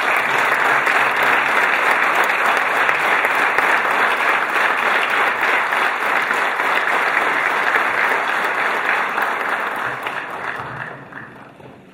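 Audience applauding in a large hall: a dense, steady clapping that fades out near the end.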